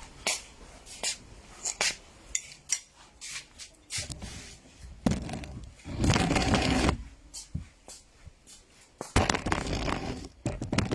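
Objects being handled and moved about: a run of sharp clicks and knocks, with longer scraping or rustling noises, the loudest about six seconds in.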